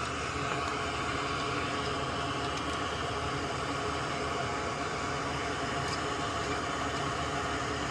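Steady whir and hiss of a small electric fan or blower running at an electronics workbench, even throughout with a faint constant hum.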